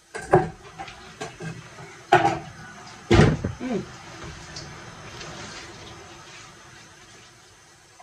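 Kitchen clatter of a plastic cutting board and utensils handled over a soup pot: a few sharp knocks, the loudest about three seconds in, as shredded cabbage is tipped off the board into the pot, then a soft steady rustle.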